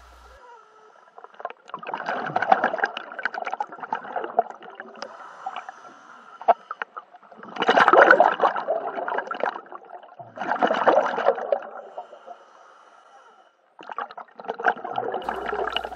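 A scuba diver's exhaled breath bubbling out of the regulator underwater, in about four bursts a few seconds apart.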